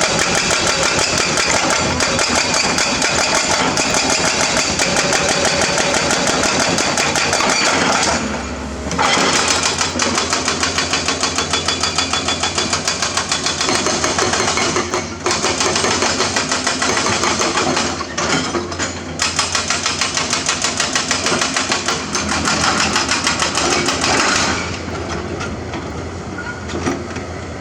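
Excavator diesel engine running hard, with a fast rhythmic clatter; it eases off twice briefly and drops quieter near the end.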